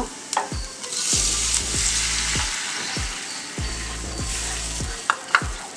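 Cold milk poured into a hot pan of melted butter and fried garlic, hissing and sizzling as it hits, loudest about a second in and then slowly dying down while a wooden spatula stirs it. A couple of sharp clicks near the end.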